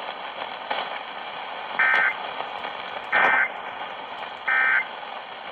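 Emergency Alert System end-of-message data bursts: three short, loud squawks of SAME digital tones, evenly spaced about a second and a half apart, signalling the end of the alert. Steady radio hiss runs underneath.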